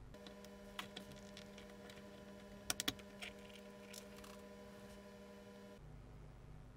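Faint clicks and light taps of a metal pick and fingers working at the small plastic housing of a CRT viewfinder's high-voltage transformer, with a quick run of three clicks near the middle. A steady low hum runs underneath and cuts off near the end.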